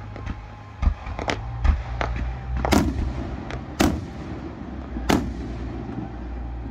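Aerial fireworks shells bursting overhead: a quick run of sharp bangs and pops, with three heavy booms about a second apart in the middle.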